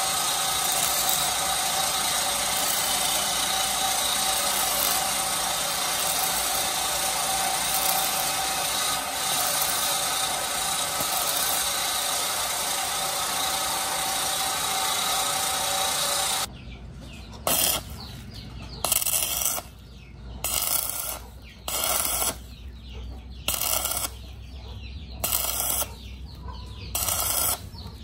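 Stick-welding arc on a cast housing's bore: a steady noise for about sixteen seconds that stops abruptly, then short bursts of about a second each, struck every second or two, with a low hum between them.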